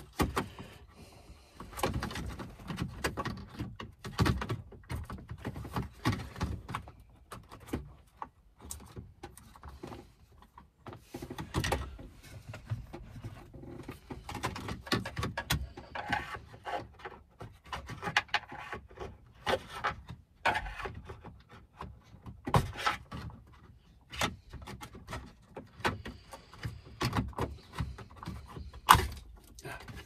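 Plastic centre-console trim and the gear-selector unit of a BMW X5 E70 being handled and pried with a screwdriver: irregular clicks, knocks and rattles, with a sharp knock near the end.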